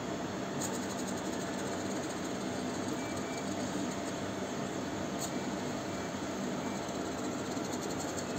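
Steady, unbroken engine hum with a hiss on top, played as the Millennium Falcon model's engine sound effect. Faint crackles come through about half a second in, around five seconds in and near the end.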